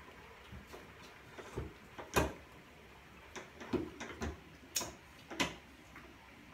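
Hand-cranked stainless-steel honey extractor being spun: a run of irregular metallic knocks and clunks from the crank and drum, the loudest about two seconds in.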